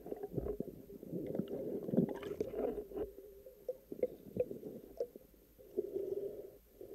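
Muffled underwater rumbling and gurgling with scattered irregular clicks and knocks, as picked up by a camera in its housing while a speared bream is handled on the spear.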